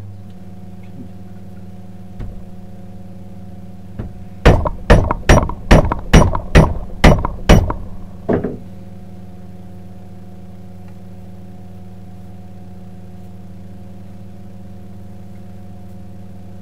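About nine sharp hammer blows in quick succession, roughly two a second, tapping the wooden wedge in to fix the axe head on its wooden handle. A steady low hum runs underneath.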